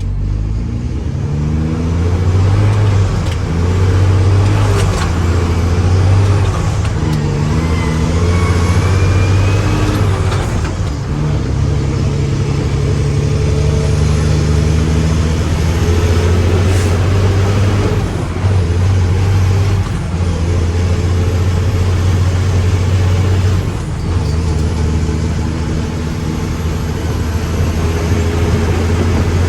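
Mack truck's diesel engine running loudly and continuously, its revs rising and falling and briefly easing off a few times.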